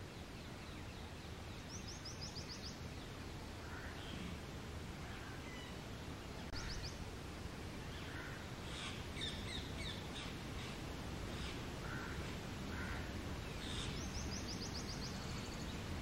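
Wild birds calling over a steady low outdoor rumble. A quick run of about five high, thin notes comes three times, and shorter, lower calls are scattered in between, busiest in the second half.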